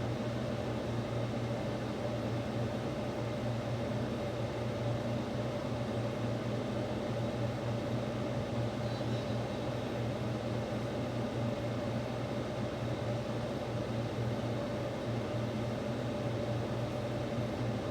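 Steady machine hum with a few constant low tones, like a fan or air-conditioning unit running.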